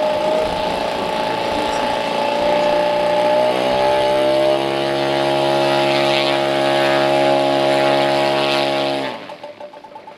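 Engine of a large radio-controlled model biplane running under power during a low pass. A higher engine note for the first few seconds gives way at about three and a half seconds to a steady, deeper note with many overtones, which cuts off abruptly about nine seconds in.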